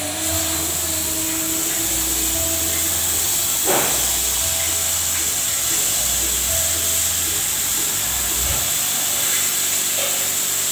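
A 50-watt CO2 laser cutter cutting plywood: a steady hiss of compressed air from the air assist blowing through the cutting nozzle, with a low motor hum that starts and stops as the gantry moves between cuts.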